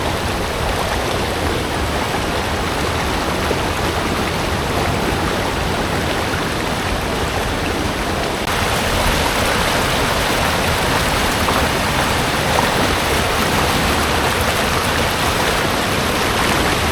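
Steady rush of water pouring down a river waterfall, growing louder and brighter about halfway through.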